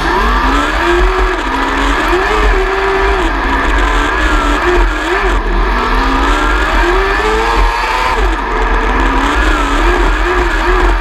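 600cc micro sprint car's motorcycle engine, heard from onboard, running hard with its pitch rising and falling every second or two as the throttle is opened and lifted around the dirt track.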